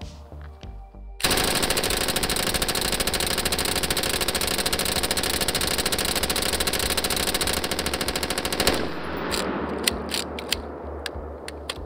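5.56 light machine gun firing one long fully automatic burst of well over a dozen shots a second, lasting about seven and a half seconds, which cuts off near nine seconds, followed by a fading echo and a few scattered sharp reports.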